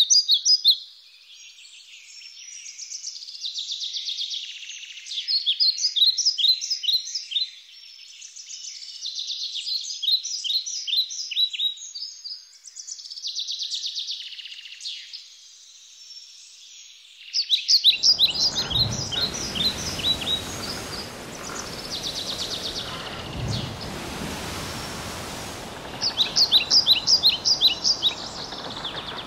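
Songbirds singing in repeated quick chirping, trilling phrases. About eighteen seconds in, a steady background hiss with a few faint low rumbles comes in under the birds.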